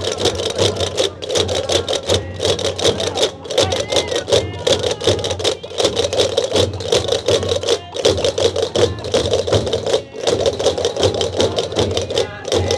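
Many Gomeran chácaras, large wooden castanets, clacking together in a fast, dense, continuous rattle, with tambores (large frame drums) beating beneath them.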